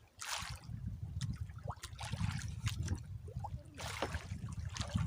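Water trickling and splashing beside a small boat, with scattered short knocks and clicks, while a freshly hooked fish is being brought up.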